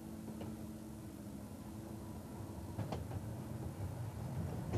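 A vehicle running with a low, steady rumble. A sharp click comes about three seconds in, and a steady hum under it fades out after about two seconds.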